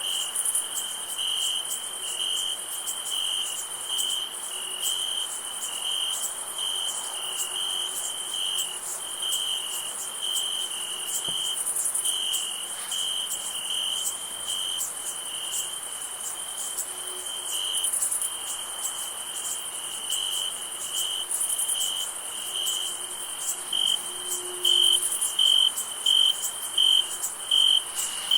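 Crickets chirping in a steady pulsing rhythm over a constant high-pitched insect drone; in the last few seconds one chirping grows louder and more clearly separated, about one chirp a second.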